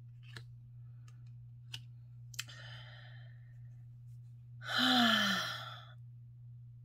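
A woman's long audible sigh, breathy with a voice tone that falls in pitch, about five seconds in. It is preceded by a softer breath and a few light clicks.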